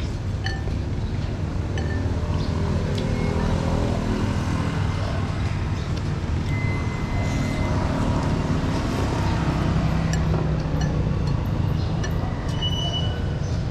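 Steady low rumble of road traffic and vehicle engines, with a few light clinks of utensils.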